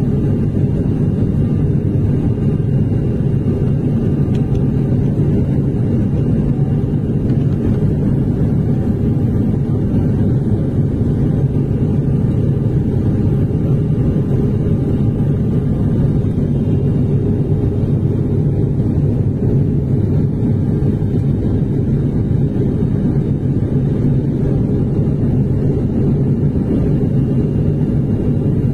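Steady cabin drone of an airliner in flight, engine and airflow noise heard from a window seat, deep and unchanging throughout.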